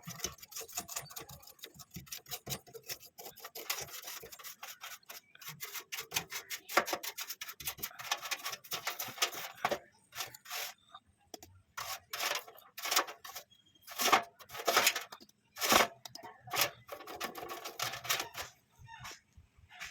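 Small brush scrubbing a computer motherboard to clear dust, a dry rubbing rasp. The strokes come quick and close together at first, then as fewer, separate strokes in the second half.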